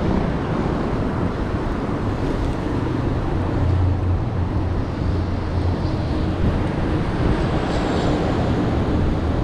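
Steady wind rushing over the microphone with a low road rumble, from moving along a street.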